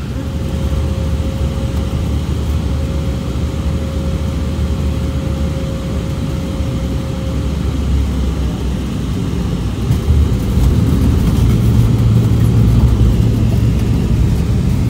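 Cabin noise of an Embraer 190-E2 with Pratt & Whitney PW1900G geared turbofans on short final: a steady rush of engine and airflow with a thin whine that stops about seven seconds in. About ten seconds in the wheels touch down with a few clicks, and a louder, deeper rumble follows as the jet rolls out with its spoilers up.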